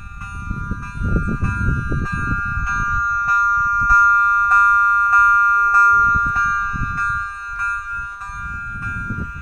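Electronic audible warning of a pedestrian railway level crossing: a steady multi-tone alarm pulsing about two to three times a second, sounding because a train is approaching. It is loudest about four to six seconds in.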